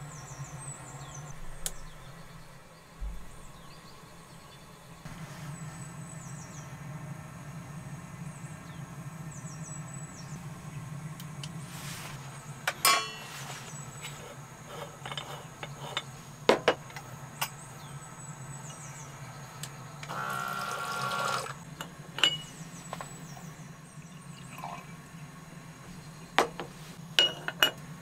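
Sharp metal clinks and knocks of camp cookware being handled, among them an aluminium moka pot, with a short pour of water a little past two-thirds of the way through, over a steady low hum.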